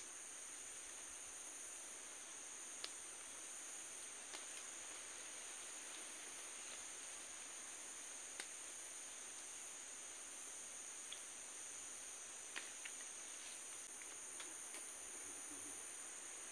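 Steady, high-pitched insect chorus holding two even shrill tones, with a few faint, scattered clicks from a rubber grip being worked onto a metal harvesting pole.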